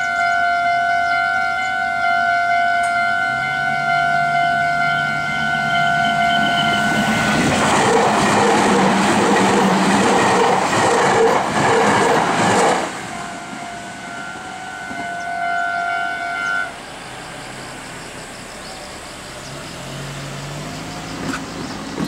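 A Japanese level-crossing warning bell rings steadily. Then a Meitetsu 3700 series + 3150 series electric express train passes at speed for about five seconds, with a loud rush and rhythmic clicking of its wheels over the rail joints that drown out the bell. After the train has gone, the bell rings on for a few seconds and stops.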